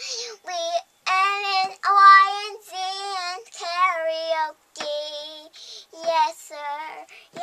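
A five-year-old girl singing on her own, in short phrases of long, wavering held notes with brief breaks between them.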